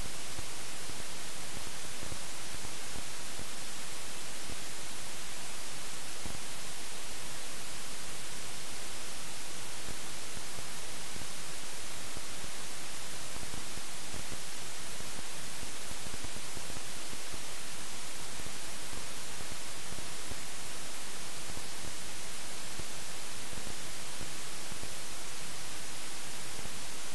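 Steady, unchanging hiss of static with no real sound of the ride in it: the helmet camera's audio failed and recorded only noise.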